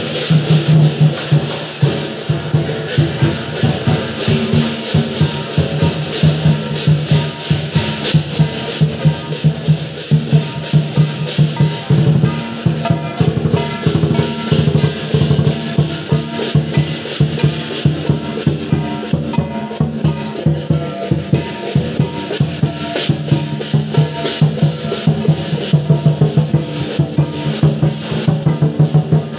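Lion dance percussion played live: a large Chinese lion drum beaten in a fast, driving rhythm, with crashing cymbals striking along with it throughout.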